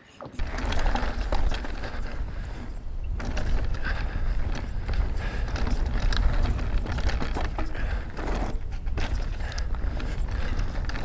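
Mountain bike riding fast down a dirt trail: wind buffeting the rider's camera microphone with a heavy rumble, and tyres and bike rattling and clicking over the ground. It starts suddenly just after the beginning as the bike gets going.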